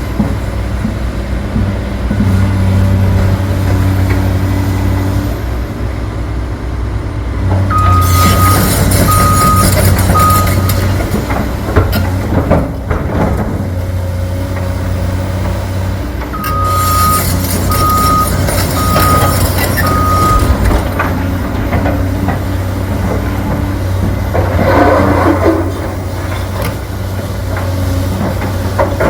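Excavator's diesel engine running, rising twice under hydraulic load while its motion alarm beeps about once a second, three beeps and then four. A few sharp metal knocks come about halfway through.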